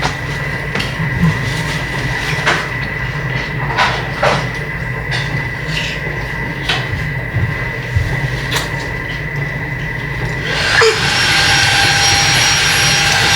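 A steady mechanical hum with a thin high whine, and scattered light clicks and knocks. About eleven seconds in, a louder machine starts up and keeps up a steady whirr.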